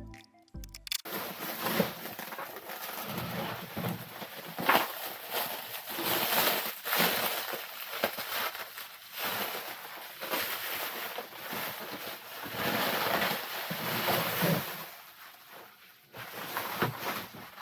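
Irregular scraping, rustling and knocks of hands-on work on the ATV as parts of the skid-plate installation are handled.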